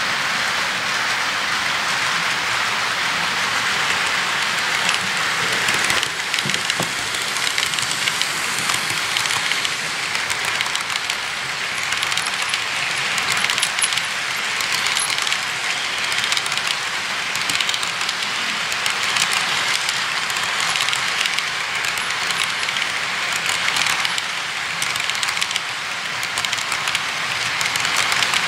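HO-scale model freight cars rolling past on the track: a steady, rattling hiss of small metal wheels on the rails, dotted with many fine clicks from wheels crossing rail joints and couplers knocking.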